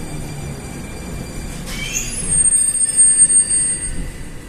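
Rusich metro train running on the rails, with a high steady wheel squeal for about two seconds in the middle. The sound then drops away near the end.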